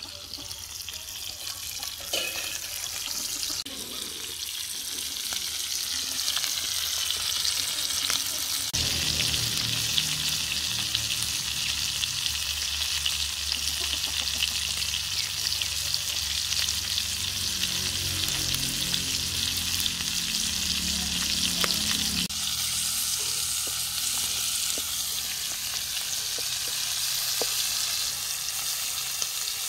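Lady fish coated in coconut masala shallow-frying in hot oil in a flat pan, a dense steady sizzle and crackle of spitting oil. A low rumble joins it from about nine seconds in to about twenty-two seconds in.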